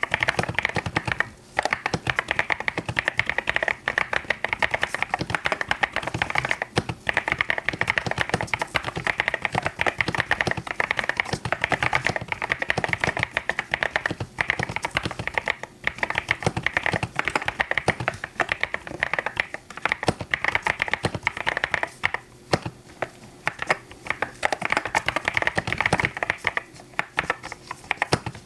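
Fast, continuous typing on a mechanical keyboard: a dense run of key clacks with a few brief pauses.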